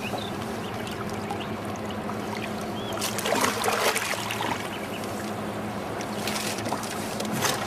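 Water splashing in several bursts, the biggest about three to four and a half seconds in, as a hooked catfish thrashes at the surface beside the boat. A steady low motor hum runs underneath.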